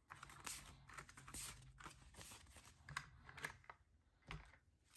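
Faint handling sounds: light irregular clicks and rustles as a stack of Canadian polymer banknotes is gathered out of a clear plastic cash tray.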